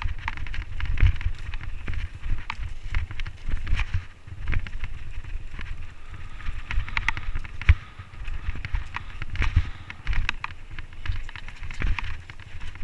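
Mountain bike riding fast down a dirt trail: tyres rolling over packed dirt and dry leaves, the bike rattling with frequent sharp knocks over bumps, and a constant low wind rumble on the microphone.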